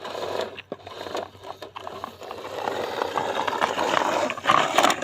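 Toy truck whirring and scraping with many small clicks, louder in the second half.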